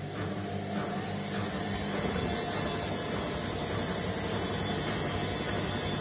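Indesit front-loading washing machine running: motor hum and water sloshing in the turning drum. About two seconds in, the motor sound grows fuller and slightly louder, then holds steady.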